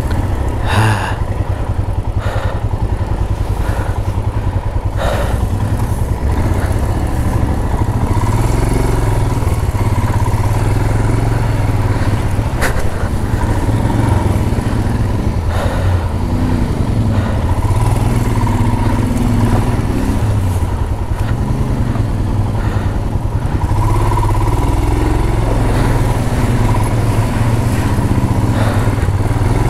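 Royal Enfield Himalayan's single-cylinder engine running steadily under way on a rough unpaved mountain road, with a few sharp knocks over the steady engine note.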